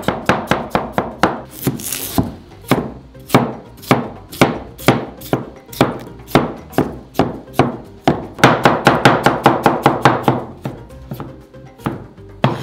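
Chef's knife chopping peeled potatoes on a plastic cutting board: quick, evenly repeated chops, about four a second, with a faster, louder run of chopping after about eight seconds.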